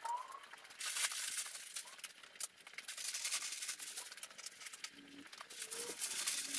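Sheets of packing paper rustling and crinkling as they are handled, in irregular bursts.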